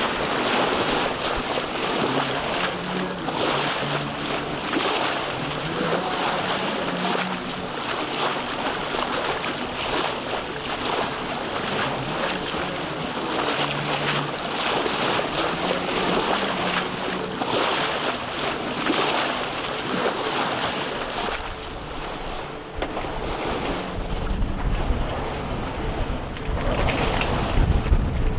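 Water rushing and splashing at a sailboat's bow as the hull cuts through ocean swells, surging and easing every second or two. Near the end, wind buffets the microphone with a low rumble.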